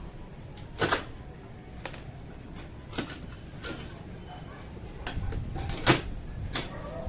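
A series of sharp clicks and knocks, about five spread over several seconds, the loudest one about six seconds in.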